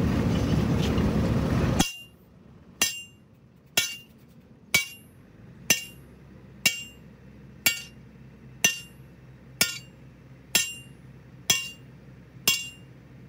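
Sledgehammer blows on a steel truck leaf-spring leaf held across an anvil, hammering it into shape: about one strike a second, eleven in all, each with a short metallic ring. The blows start after a loud noisy stretch that cuts off about two seconds in.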